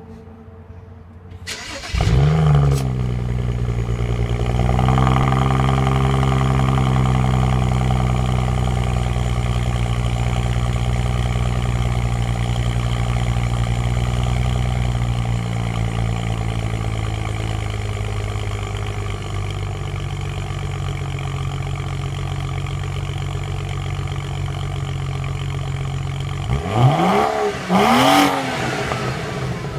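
BMW 335i's twin-turbocharged straight-six cold-starting: a brief crank, then it catches with a flare about two seconds in and settles into a raised cold idle that steps down lower after about fifteen seconds. Near the end it is revved twice in quick blips.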